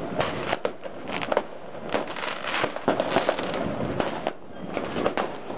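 Fireworks going off: a dense, irregular run of bangs and crackles.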